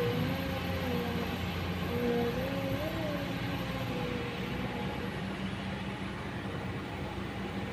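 Kobelco hydraulic excavator running steadily under load, a low diesel hum with a higher whine that wavers up and down in pitch over the first few seconds.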